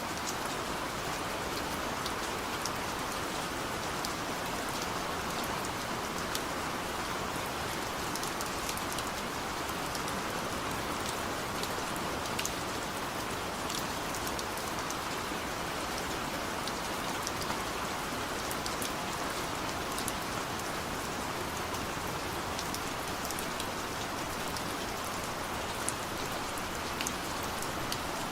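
Heavy rain falling steadily as a continuous even hiss, with scattered sharp drop ticks throughout.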